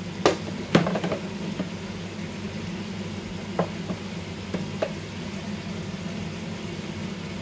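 Chicken frying in a pot on a gas burner over a steady low hum, with sharp knocks: two loud ones within the first second and a few softer ones around three and a half to five seconds in.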